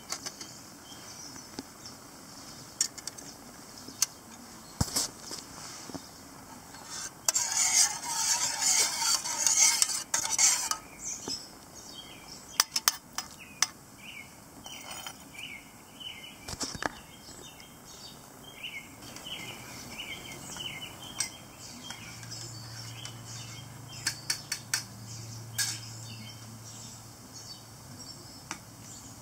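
Metal clinks and scrapes from a stainless-steel canteen cup and its alcohol stove stand as soup is cooked in it, with a louder stretch of scraping about seven seconds in that lasts around three seconds. Birds chirp faintly through the middle.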